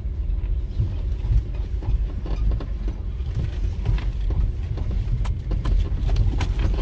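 Vehicle driving along a graded dirt road under construction: a steady low rumble of engine and tyres, with scattered knocks and rattles, more of them in the second half.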